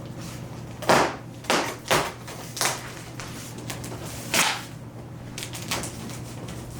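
Packaging being handled and opened: about half a dozen short, sharp rustles spread over several seconds.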